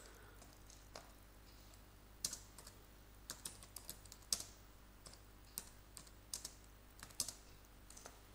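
Computer keyboard typing: faint, irregular keystrokes in small clusters with short pauses between them, over a steady low hum.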